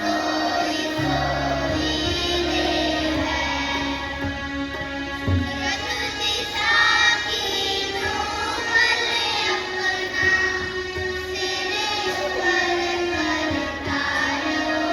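Children singing a prayer song together, over instrumental accompaniment with a held low bass note for the first few seconds.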